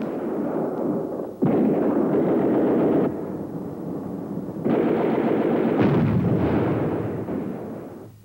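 Battle sound effects of dense gunfire and exploding shells, in two loud spells that start suddenly, the second fading out near the end.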